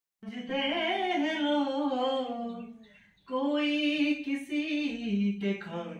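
A man singing a melody with a wavering, gliding pitch to his own harmonium accompaniment. He breaks off briefly about three seconds in, then sings on.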